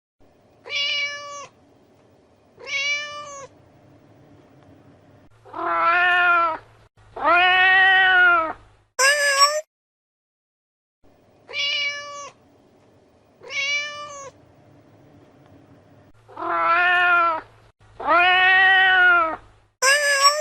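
Domestic cat meowing: two short, higher meows, then two longer, lower meows that rise and fall in pitch, and a brief high-pitched call. After a pause of about a second the same sequence repeats.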